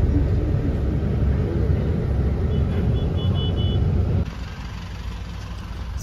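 Low rumbling noise of a moving vehicle, which cuts off abruptly about four seconds in.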